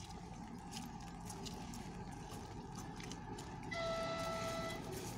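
Approaching 2M62 diesel locomotive pair, a low steady rumble, sounding one steady horn blast of about a second near the end.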